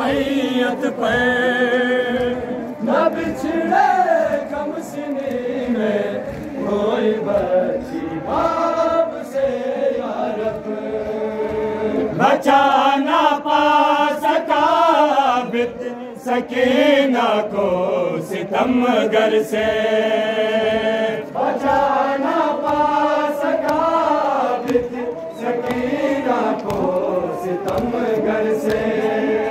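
Several men's voices chanting a noha, a Shia mourning lament, together in phrases that rise and fall.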